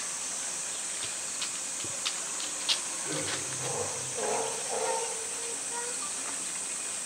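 Steady, high-pitched hiss of a summer cicada chorus, with a few faint water clicks and drips as a polar bear swims along the pool's edge.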